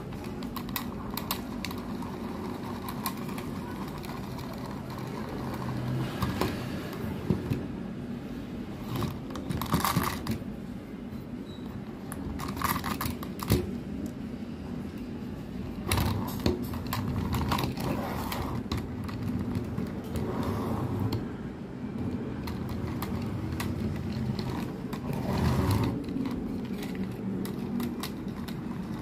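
Clicks, knocks and short rattles from a plastic pull-string toy helicopter being handled and its string worked, over a steady low hum.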